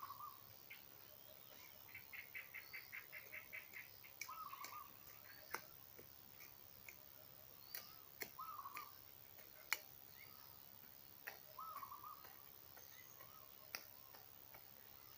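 Faint songbirds calling: one bird repeats a short, curling call about every four seconds, and another gives a quick run of about a dozen higher notes near the start. A few sharp clicks come in between, the loudest about ten seconds in.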